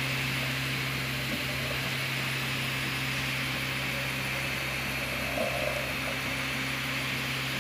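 Original Prusa i3 3D printer running while it lays the top solid layer over the infill: a steady whir of its fans over a low, even hum.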